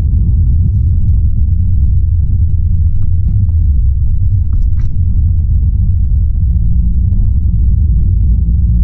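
Car driving, heard from inside the cabin: a steady, loud low rumble of engine and road noise.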